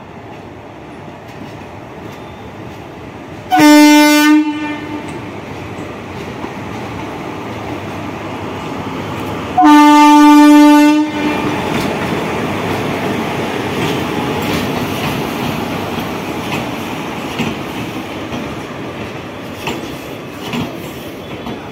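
WAP-4 electric locomotive sounding its horn twice, a blast of about a second at around three and a half seconds in and a longer one at about ten seconds, over the steady rumble of the passing train. After the second blast the wheels keep rolling and clicking over the rail joints as the locomotive and coaches go by.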